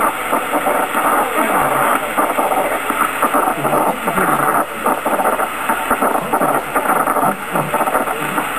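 Maas DX 5000 CB transceiver receiving on 27.555 MHz upper sideband: a steady static hiss with choppy, garbled signals mixed into it, the noise of an open band during long-distance skip conditions.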